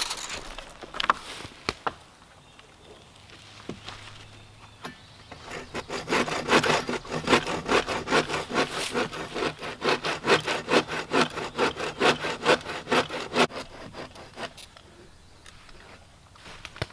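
Hand saw cutting through a dead downed log in steady back-and-forth strokes, about two a second, starting about five seconds in and stopping a few seconds before the end. A few sharp knocks come before the sawing.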